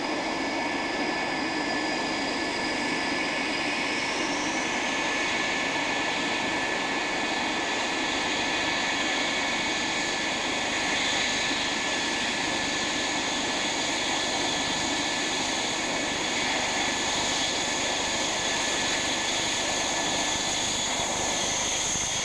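Panavia Tornado's twin RB199 turbofans whining steadily at taxi power over a constant jet roar, a high whine stepping up in pitch about four seconds in.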